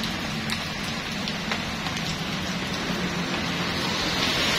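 Heavy rain falling steadily: an even hiss with a few scattered drop taps.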